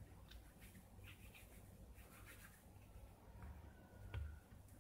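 Near silence with faint handling sounds: hands rubbing and pressing soft cookie dough and a metal spoon against a plate of apple filling, with scattered light ticks and a slightly louder click about four seconds in.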